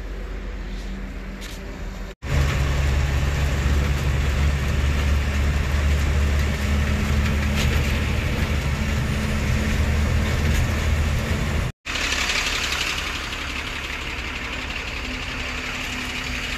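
Steady low drone of a truck's diesel engine with road noise, heard from inside the cab while driving on the highway. It is broken by two abrupt cuts, about two seconds in and near twelve seconds. The loudest, deepest drone lies between the cuts, and the last few seconds are a quieter, hissier noise.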